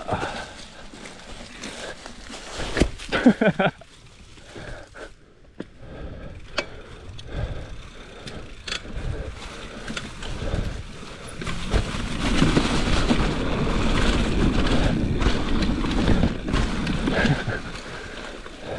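Mountain bike rolling over a dirt trail: tyre noise with scattered rattles and knocks, growing louder and rougher about twelve seconds in and easing off near the end.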